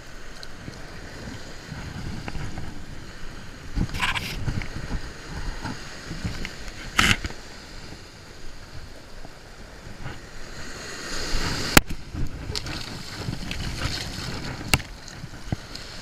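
Ocean surf washing up the beach, with a low rumble of wind on the microphone. A few sharp clicks and knocks stand out, the loudest about three-quarters of the way through.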